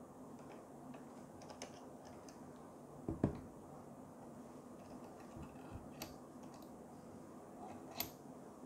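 Super clamp and articulating magic arm being handled and clamped onto a Gorillapod flexible tripod leg: scattered light clicks, a dull knock a little after three seconds in, and sharp clicks around six and eight seconds, over a faint steady hum.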